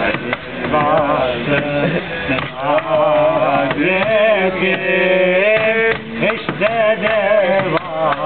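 Music: an ornamented melody with wavering, sliding notes, some held for about a second, played over steady percussion strokes.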